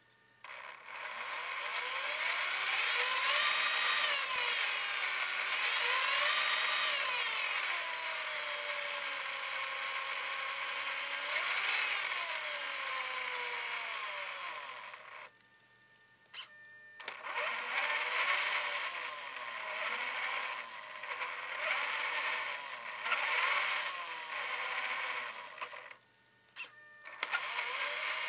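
Tekin 30-turn brushed motor in an Axial Wraith RC crawler running under power: a whine that rises and falls with the throttle, over a steady high-pitched tone and a strange buzz that is absent when the truck is rolled by hand unpowered. Power cuts out twice, for about a second each time, around halfway and again near the end.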